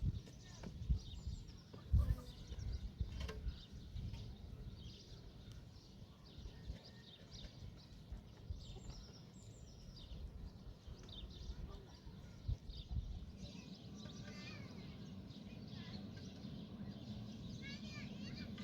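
Birds chirping and calling over a low background rumble, with a few dull knocks in the first couple of seconds and a run of quick chirps near the end.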